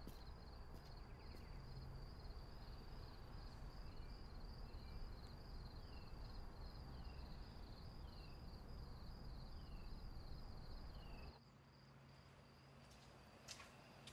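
Faint summer-night ambience: insects trilling steadily in a fast high pulse over a low background rumble, with a few short falling chirps. It all cuts off abruptly about eleven seconds in, leaving a quieter, fainter hum.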